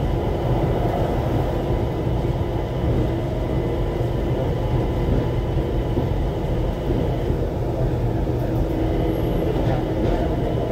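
Cabin of an ATL SkyTrain people mover (a rubber-tyred Mitsubishi Crystal Mover) running at speed along its guideway: a steady low rumble with a few held tones from the drive, the highest fading out about seven seconds in.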